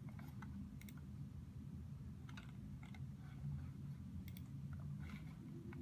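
A few scattered, irregularly spaced clicks of keys and trackpad on a MacBook Pro laptop, as a web form is filled in, over a low steady hum.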